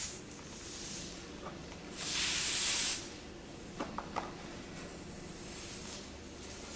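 Air hissing out of a car tyre's nail puncture in bursts as the nail is worked loose with small cutting pliers. The loudest burst comes about two seconds in and lasts about a second, a fainter one follows later, and a few light clicks fall in between.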